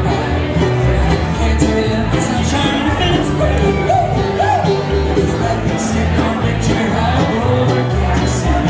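Bluegrass string band playing live: upright bass, mandolin, acoustic guitar and banjo, with a man singing lead through the middle.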